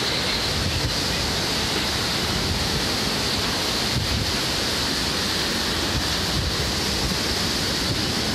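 Hurricane wind blowing steadily, buffeting the phone's microphone with a constant low rumble under a broad hiss.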